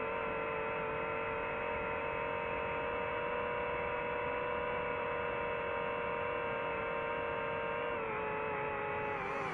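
A steady hum of several held tones that sags slightly in pitch near the end.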